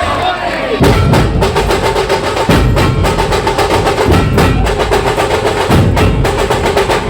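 Procession band drums playing a fast, driving beat with heavy low hits, starting about a second in, under a held melodic note.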